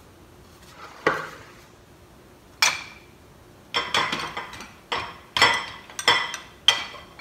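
Kitchen dishes and utensils knocking and clinking, about eight sharp knocks, some with a short ringing tone. They come faster in the second half.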